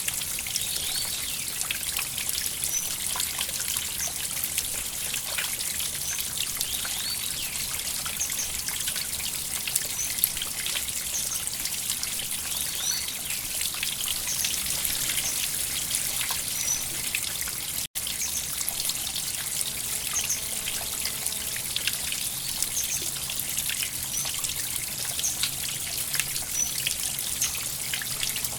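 River water trickling and flowing steadily, with small high splashes scattered through it. The sound cuts out for an instant about two-thirds of the way through.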